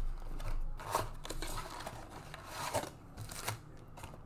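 Cardboard trading-card blaster box being opened by hand and its foil-wrapped packs slid out: a string of short rustles and scrapes.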